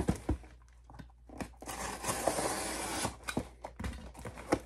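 Heavily taped cardboard shipping box being pulled open by hand: tape and cardboard tearing and scraping for a second or two in the middle, with a few knocks of the box before and after.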